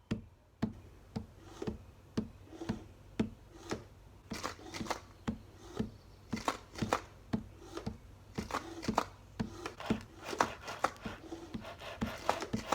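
A homemade percussive beat: steady hits about two a second, each with a low thump. Busier, brighter clicking hits fill in from about four seconds in.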